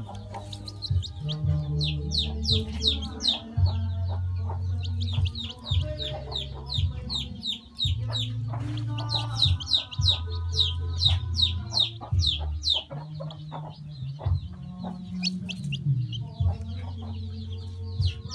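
Chicks peeping continuously: a rapid run of short, high, falling peeps, several a second, over a low steady drone.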